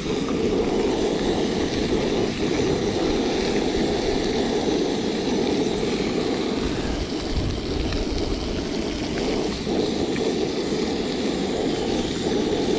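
Gas-canister camping stove burning steadily under a frying pan of trout and butter, an even roar with no breaks.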